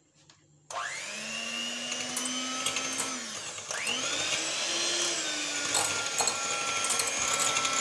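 Electric hand mixer whipping cream in a glass bowl. The motor switches on suddenly under a second in and its whine rises as it comes up to speed. It dips briefly near the middle, rises again and runs on steadily, with occasional clicks of the beaters against the bowl.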